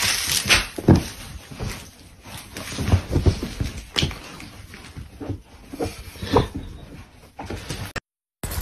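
A large shaggy dog clambering over a person at close range: irregular rustling of fur and bumps against the phone.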